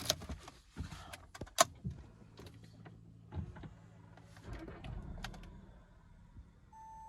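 Clicks and knocks of someone settling into an Audi A3's driver seat and turning the key, then a steady low hum for about three and a half seconds. Near the end a single steady dashboard warning beep starts.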